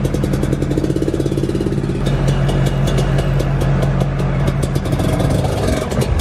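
Dirt bike engine running as the bike is ridden up to and onto a ramp into a pickup truck bed.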